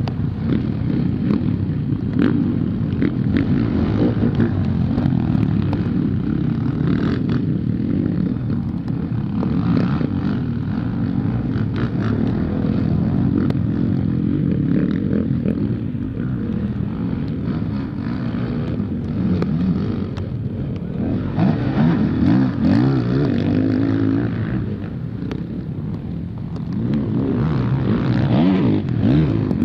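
Motocross bikes racing on a muddy dirt track: the engines run hard, with the pitch rising and falling as the riders open and close the throttle, and more than one bike heard at once.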